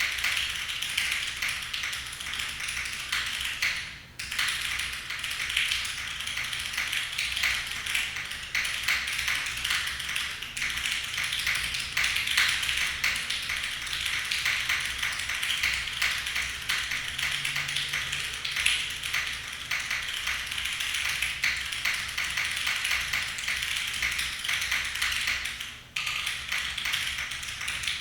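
Fast, continuous typing on a mechanical keyboard: the DN 997.3 prototype with an aluminum plate, lubed NOS vintage Cherry MX Black linear switches and GMK keycaps. It is a dense stream of key clacks, with a brief pause about four seconds in and another near the end.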